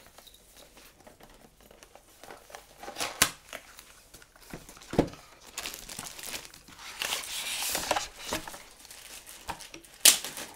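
Packaging being unwrapped by hand: crinkling and tearing, with a few sharp clicks. There is a longer stretch of dense crinkling from about six to eight seconds in.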